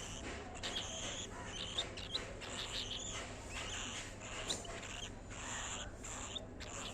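Cockatiel chirping: many short, quick high chirps, some rising in pitch, repeated unevenly over a steady low hum.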